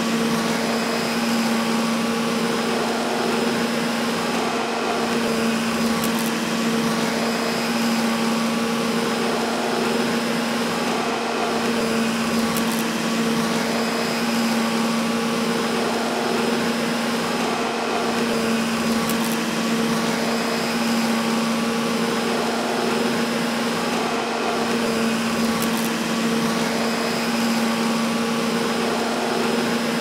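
Vacuum cleaner motor running steadily: a constant rush of air over a steady low hum, with no change in speed.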